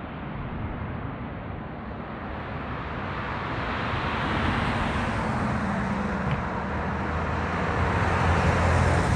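A vehicle engine running, with a low hum under a broad rushing noise, growing steadily louder.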